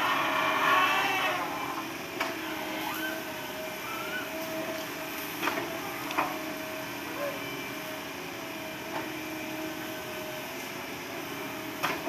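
Hitachi hydraulic excavator running steadily with an even whine, while its boom works among logs, with a few sharp knocks and clanks spread through. A brief, wavering high squeal near the start is the loudest part.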